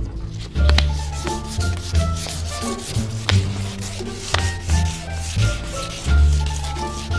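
2000-grit sandpaper rubbed back and forth by hand over a plastic car headlight lens, under background music with a steady bass line.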